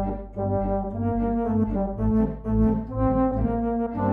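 Background music score: a melody of short, changing notes over a steady low bass line.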